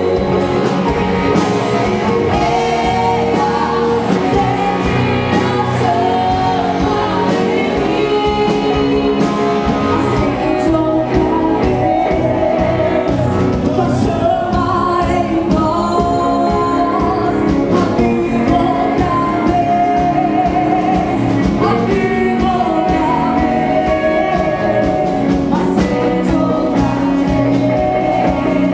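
Worship music: singing over a live band with a steady beat.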